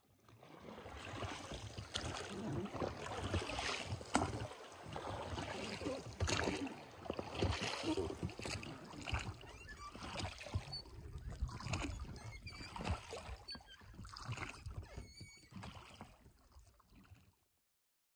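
Water splashing and lapping around a raft on a river, with scattered knocks, dying away near the end.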